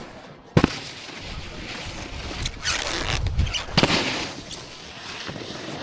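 Snowboard scraping and sliding over packed snow, with a sharp knock about half a second in and louder scraping in the middle.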